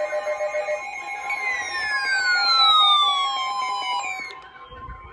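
Several emergency alert tones sounding at once. A steady high alarm tone runs under a fast pulsing alarm that stops about a second in. Then a single siren-like tone falls in pitch for about three seconds and ends about four seconds in.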